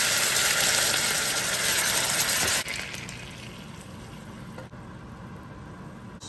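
Water poured into a hot saucepan of frying scallions, hissing loudly for about two and a half seconds, then dropping suddenly to a quiet simmer.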